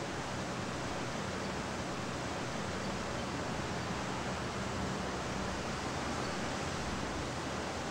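Steady city ambience: an even, unbroken rush of distant noise with a faint low hum under it.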